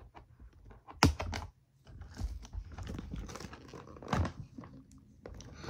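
Toy packaging being handled and torn open: crinkling and rustling with scattered clicks and knocks, the loudest a sharp click about a second in.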